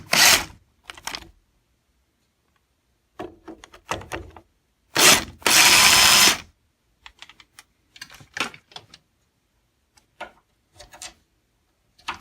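The two screws of an old door latch's faceplate being backed out of the door edge: short bursts of tool noise, the longest and loudest about five seconds in, then scattered light clicks and taps.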